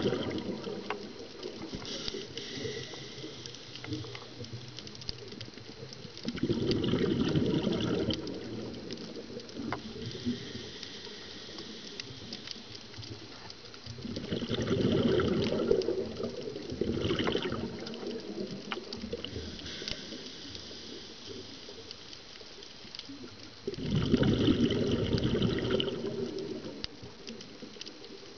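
Scuba diver's exhaled bubbles rushing out of the regulator in bursts of about two seconds, roughly every eight seconds, with quieter breathing noise and scattered faint clicks between them.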